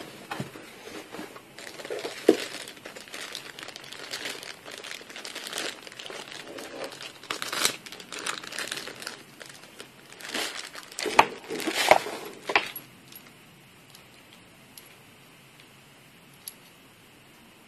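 Plastic wrapping crinkling and rustling as it is pulled off braided stainless-steel tap supply hoses being unpacked from a cardboard box, with a few sharp knocks about two-thirds of the way through. The handling then mostly stops, leaving only a few faint ticks.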